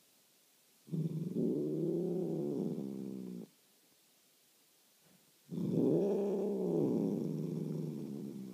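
Domestic cat giving two long, low complaining yowls, each rising and then falling in pitch: a grumbling protest at being touched.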